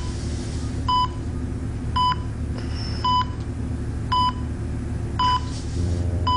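Bedside hospital patient monitor beeping steadily: a short high beep about once a second, over a low steady hum. Soft music comes in near the end.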